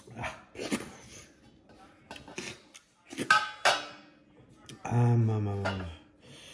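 A ceramic bowl clinking and clattering against a stainless steel plate several times, knocked, scraped and then set down in it. About five seconds in, a man's low hum lasts about a second.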